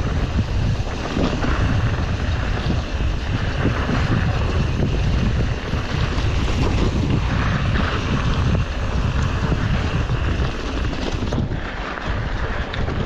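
Wind buffeting the microphone of a camera carried on a mountain bike ride at speed, over a constant low rumble and chatter from the bike on rough dirt trail. It eases slightly near the end.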